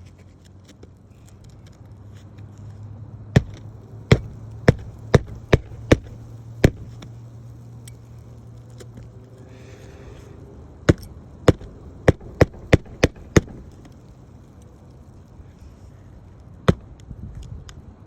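Sharp strikes of nails being driven into roof shingles, in two runs of about seven blows each at roughly two a second, with a single strike later. A low steady hum sounds under the first half and stops about halfway through.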